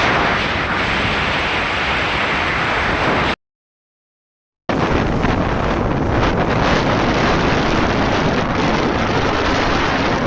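Wind rushing over the microphone, a loud, steady roar of noise, cut to dead silence for about a second a little over three seconds in, then resuming.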